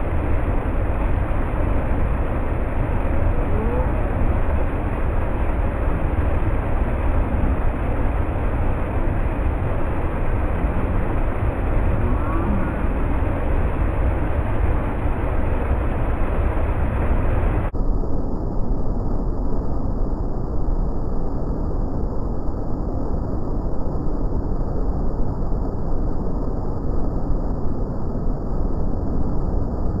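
Waterfall: peat-stained river water pouring over a rock ledge into a churning pool, a loud steady rush. About two-thirds of the way through, the sound turns abruptly duller and more muffled.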